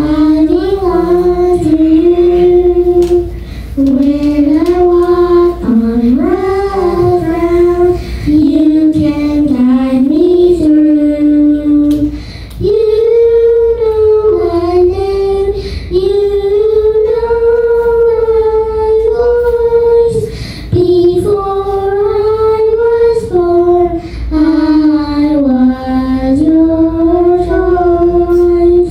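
Children's voices singing a sacred song in unison into handheld microphones: one melody line of held, gliding notes with short breaths between phrases.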